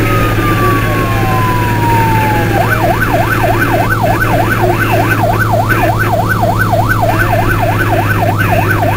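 Star fire truck's siren, heard from inside the cab over the drone of the truck's engine. The siren falls slowly in pitch, then about two and a half seconds in switches to a fast up-and-down yelp of about two and a half sweeps a second.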